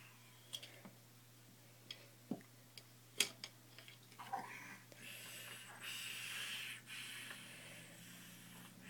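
A few sharp clacks of plastic toys, then babies breathing and blowing through the little hole in the bottom of plastic stacking cups held to their mouths: a breathy hiss in pulses with short pauses, starting about halfway through.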